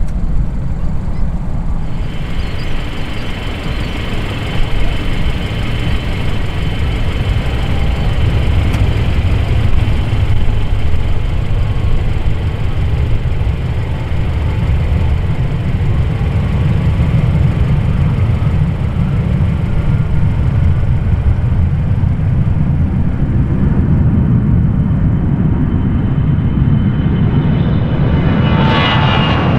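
Airbus A321-211's CFM56 jet engines running as the airliner moves on the ground: a steady low rumble with a thin high whine. Near the end the sound swells and the whine rises as thrust comes up for the takeoff roll.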